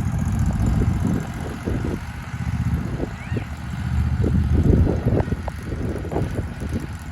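Zero-turn riding lawn mower's engine running steadily as it is driven, getting louder for a moment about halfway through.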